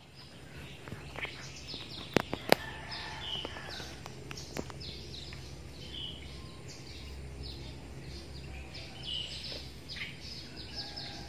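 Small birds chirping over and over, over a steady outdoor background hum, with two sharp clicks a little after two seconds in.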